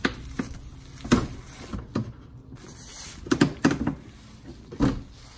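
A string of sharp plastic clicks and knocks, about eight of them, as plastic push-pin retainers are worked loose and pried out of a car's front undertray with a small hand tool. The loudest knocks come a little over a second in and near the end.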